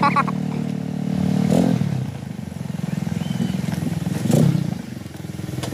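Small Yamaha scooter engine running at low speed, dropping back to a quieter idle about two seconds in. There is a brief louder knock a little past four seconds.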